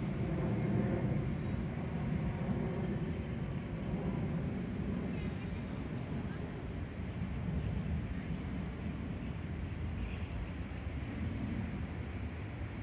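Airbus A320's CFM56 jet engines heard from the ground as the airliner climbs away overhead: a steady low rumble that eases slightly. Small birds chirp in short runs of quick rising notes several times.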